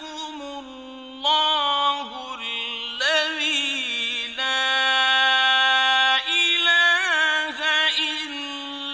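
A man's solo voice reciting the Quran in the slow, melodic mujawwad style: phrases of long, ornamented held notes whose pitch wavers and bends.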